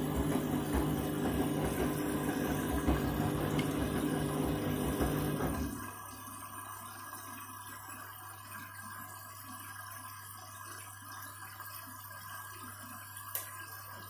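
Candy front-loading washing machine filling for a rinse: water rushing in over a steady low hum, with the drum turning in sudsy water. The rushing cuts off suddenly about six seconds in, leaving the quieter hum and a single click near the end.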